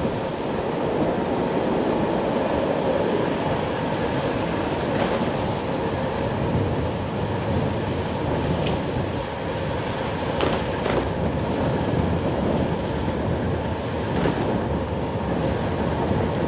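Gravel bike riding along: steady rolling noise of the tyres on the road, with a few faint clicks and rattles.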